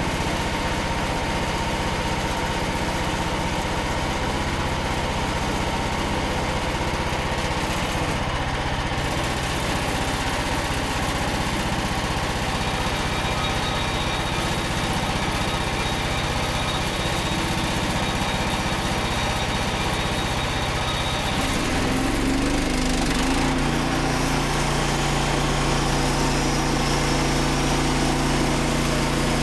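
Small petrol engine of a Frontier OS27 portable bandsaw mill running steadily. About 22 seconds in, its note shifts and gets slightly louder.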